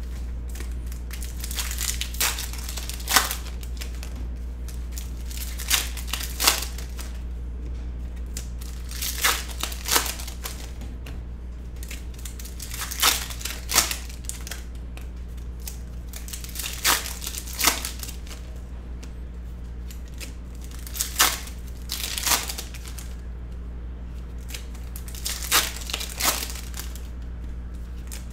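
Foil trading-card pack wrappers being crinkled and torn open by hand: sharp, irregular crackles every second or two, over a steady low hum.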